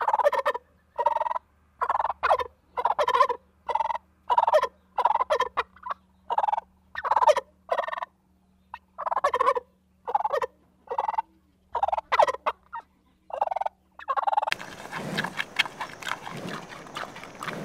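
Bronze turkey tom gobbling in short repeated calls, about two a second, with a brief pause about eight seconds in. From about fourteen seconds in, a giant panda chewing and rustling bamboo.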